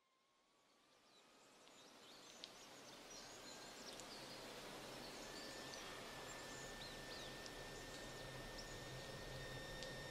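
Woodland ambience fading in from silence over the first few seconds: a steady hiss with scattered short bird chirps, under a thin high sustained tone that climbs a little and then holds, over a low hum.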